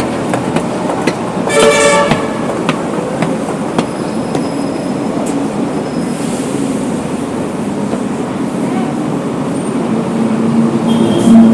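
Steady city traffic noise with engines running, and a vehicle horn sounding once briefly about one and a half seconds in.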